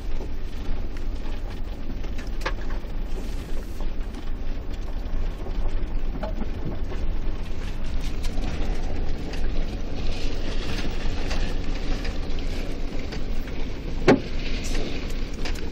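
Inside an SUV's cabin while it drives up a dirt track: steady low engine and tyre rumble, with occasional short knocks and rattles, the loudest near the end.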